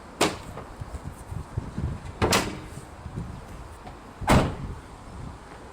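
Three sharp clunks from a 2001 Renault Clio's bodywork, about two seconds apart, the last the loudest, as the car is opened up to get at the engine bay.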